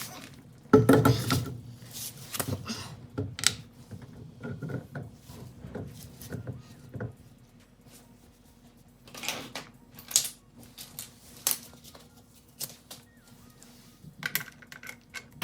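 Metal parts and hand tools being handled while a wheel spacer is fitted to a car's hub: irregular clicks and knocks, with a heavier knock about a second in.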